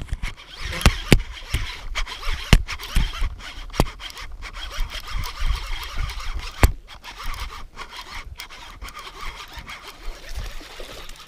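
Handling noise right on the camera's microphone: close rubbing and scraping, broken by several sharp knocks, the loudest right at the start and a last one about two-thirds of the way through.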